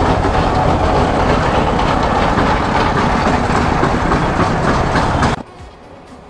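TVS Apache motorcycle running as it is ridden slowly through street traffic, heard from a camera on the rider as a loud, dense rumble. The sound drops away abruptly about five seconds in.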